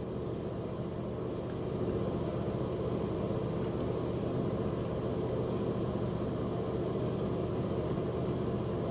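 Steady low mechanical hum in the room, even throughout with no breaks.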